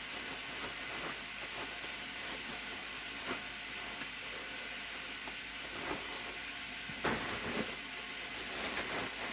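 Steady background hiss with scattered light clicks and rattles of plastic shotshell wads being picked up and handled; the loudest clatter comes about seven seconds in.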